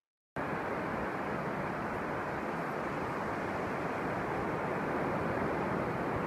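Steady rush of wind and surf on a beach, with wind buffeting the microphone; it starts abruptly about a third of a second in.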